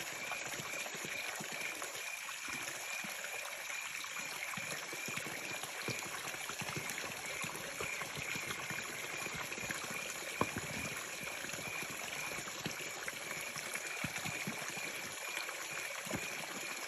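Jungle river water flowing steadily, with a constant high-pitched tone running over it and a single sharp click about ten seconds in.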